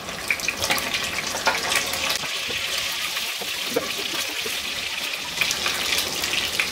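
Already-boiled chicken pieces sizzling and crackling in shallow hot oil in a nonstick frying pan.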